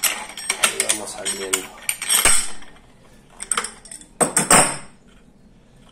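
Adjustable wrenches clinking and clanking against the hub motor's steel axle and nut as the nut is worked loose. There is a quick run of metal clinks with a sharp clank a little after two seconds in, then another group of clanks around four seconds in.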